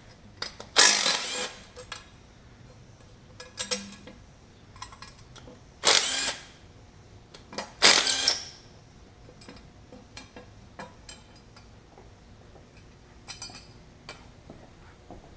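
Three short bursts of a pneumatic hand tool, about a second in, at six seconds and at eight, loosening bolts during an engine teardown, between scattered metallic clinks and clicks of tools and engine parts being handled.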